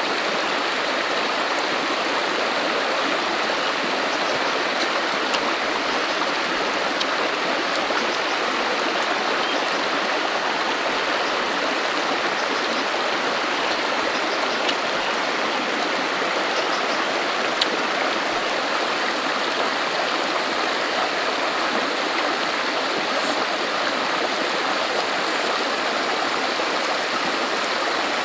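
Stream running over rocks: a steady rush of flowing water, with a few faint single clicks over it.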